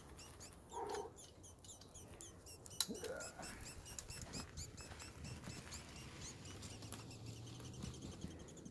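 Dung beetle squeaking as it is held: a faint, steady train of short high-pitched chirps, several a second, the stridulation a beetle makes when disturbed. A single sharp tick sounds about three seconds in.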